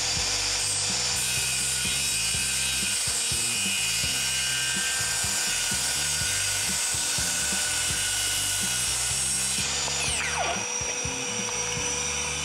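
Bosch GKS18V-68GC BITURBO cordless circular saw running at full speed and cutting through a wooden board. It holds steady for about ten seconds, then the trigger is let go and the blade winds down, its whine falling in pitch.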